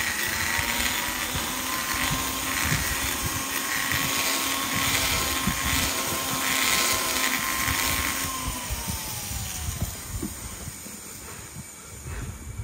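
Hand-held rotary grinder spinning at high speed as it grinds out a port in a three-valve motorcycle cylinder head: a steady high whine that wavers slightly as the bit bites. About two-thirds of the way through it is switched off and winds down, its pitch falling away.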